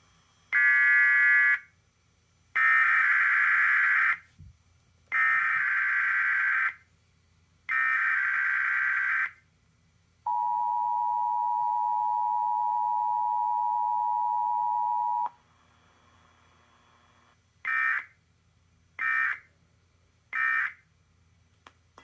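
Emergency Alert System test tones. Four buzzy SAME header data bursts come first. Then the two-tone attention signal holds steady for about five seconds. Three short end-of-message data bursts close it.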